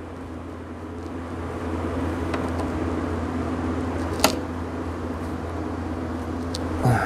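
Steady hum of a fan or motor running, growing a little louder about a second in, with a single sharp click about four seconds in.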